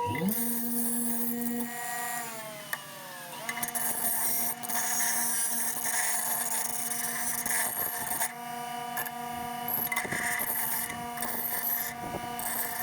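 Small electric grinding motor spinning up, running with repeated bursts of high grinding hiss as metal is ground down, likely a washer's edge being ground to a smaller diameter. It slows briefly about two to three seconds in, picks back up, and winds down near the end.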